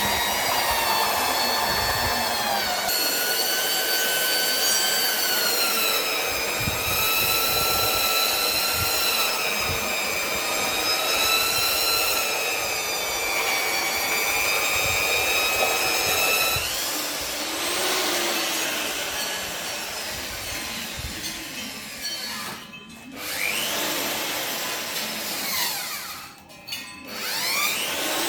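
An electric power tool's motor whining continuously, its pitch wavering up and down as the load changes. It slows sharply twice near the end and spins back up each time.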